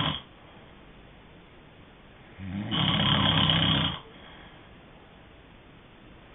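Snoring during sleep, one snore about every four seconds. The end of a snore trails off at the very start, then one full, low-pitched snore comes about two and a half seconds in and lasts about a second and a half.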